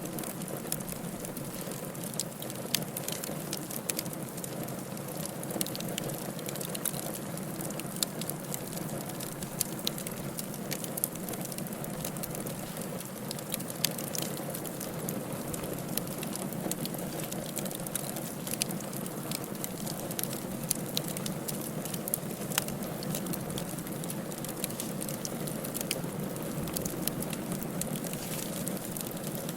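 Firewood burning in a fireplace: a steady low rush of flames with frequent irregular crackles and pops, a few sharper snaps standing out.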